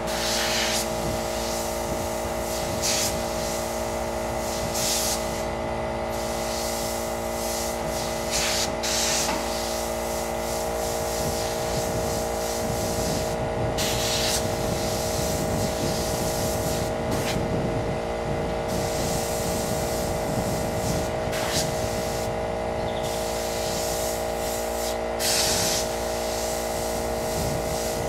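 Airbrush spraying paint onto fabric in short hisses every few seconds, a longer one about fourteen seconds in, over the steady hum of its air compressor.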